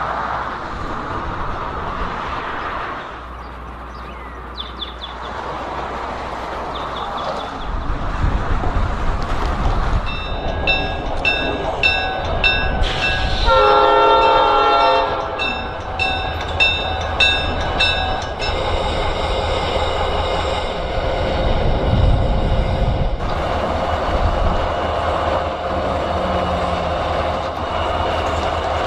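Diesel freight locomotive in old Illinois Central paint passing, its engine rumble building about a third of the way in. A bell rings steadily, about twice a second, for several seconds, and one short horn blast sounds about halfway through.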